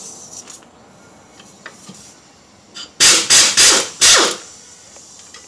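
Pneumatic wrench on an air hose firing in four short, loud bursts about three seconds in, the last one dropping in pitch. It is backing out a bolt to remove a bracket on a rusty front steering knuckle.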